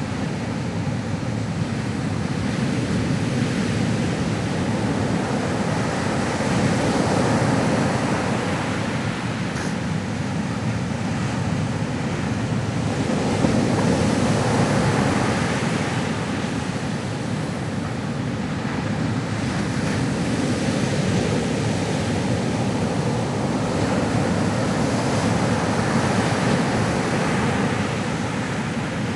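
Ocean waves breaking and washing on a shore, a continuous surf noise that swells and eases every several seconds.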